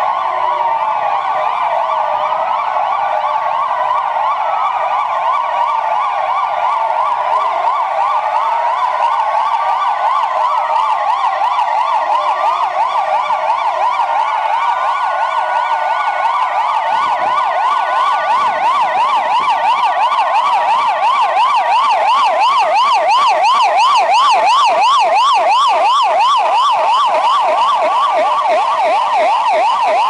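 Sirens of many municipal police patrol cars sounding together, their wailing pitches sweeping up and down and overlapping into a loud din. From about halfway through, more of them switch to a fast yelp and the din grows a little louder.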